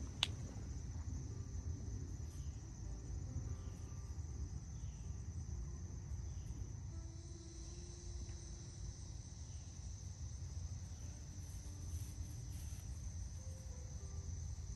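Steady high-pitched chorus of insects such as crickets, over a low, even rumble of outdoor background. A single sharp click comes just after the start.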